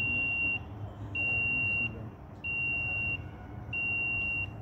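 HDPE pipe fusion machine's control box beeping during its timed fusion cycle: a long, steady, high-pitched beep repeating about every second and a half, four times, over a low steady hum.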